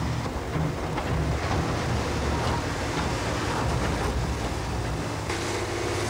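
Caterpillar wheel loader's diesel engine running under load as it works its rock bucket in broken rock, a steady noisy rumble.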